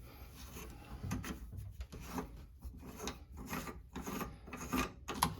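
Bathroom faucet's cartridge hold-down being turned loose by hand: a run of short, irregular scraping strokes as metal threads rub, about two or three a second.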